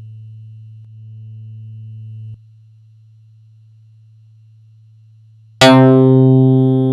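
Korg EX-800 analog synthesizer bass sound effects: a held low bass note swells and then drops off sharply about two and a half seconds in, leaving a faint low hum. Near the end a loud, bright new bass note strikes suddenly, full of overtones, and slowly dies away.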